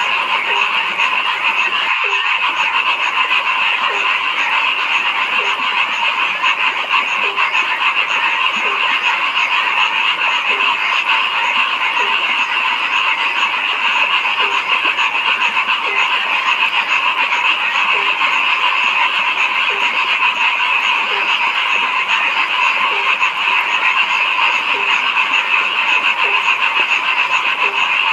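A dense chorus of frogs calling steadily, with a lower single croak repeating about every second and a half.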